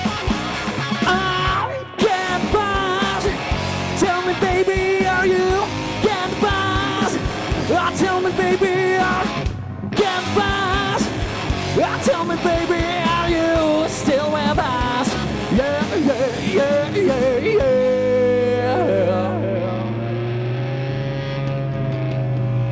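Live heavy-funk rock band playing: electric guitar, bass and drums with a singer's vocals. The band cuts out abruptly for a split second twice, about 2 seconds in and again about 10 seconds in. Near the end the playing thins to a long held note over a low drone.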